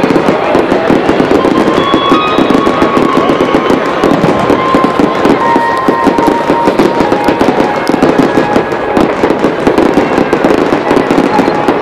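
Aerial fireworks display: a dense, continuous barrage of rapid bangs from many shells bursting at once, with no pause.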